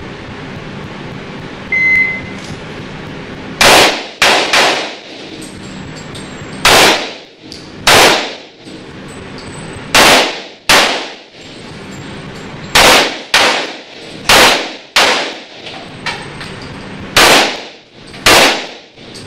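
An electronic shot timer beeps once, about two seconds in, as the start signal. Then a pistol fires about fourteen shots in quick pairs and short strings, each shot echoing in the range building.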